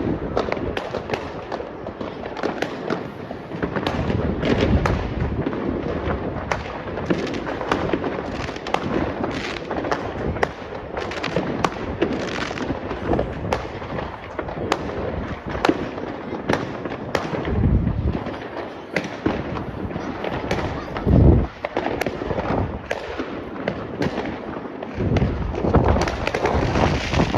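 Fireworks going off continuously: rapid, dense crackling pops throughout, with deeper booms about 17 and 21 seconds in, the one at 21 seconds the loudest.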